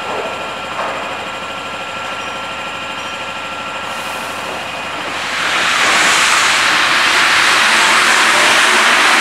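MP73 rubber-tyred metro train standing at the platform with a steady hum of several tones. About five seconds in, a loud, even hiss swells up and holds as the train pulls away.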